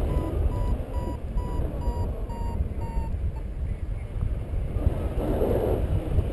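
Paragliding variometer beeping, a short high beep about three times a second that stops about three seconds in, the sign of the glider climbing in lift until it levels off. Wind rushes on the microphone throughout.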